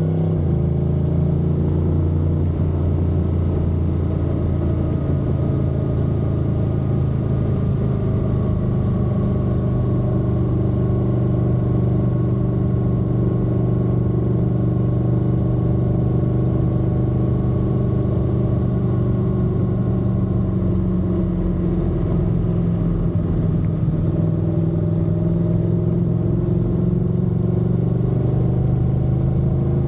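Honda NC750X's parallel-twin engine running under way at a fairly steady cruise. Its pitch sags a little about two-thirds of the way through, then climbs again near the end as the bike speeds up.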